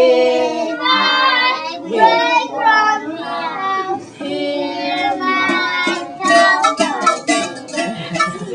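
Young children singing a song together, with some sharp percussive taps in the second half.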